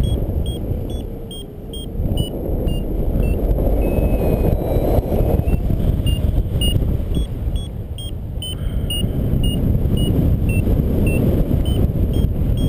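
Wind rushing over the microphone in paraglider flight. Over it a variometer beeps in short high pips, about two to three a second, its pitch stepping up and down: the vario's signal that the glider is climbing in lift.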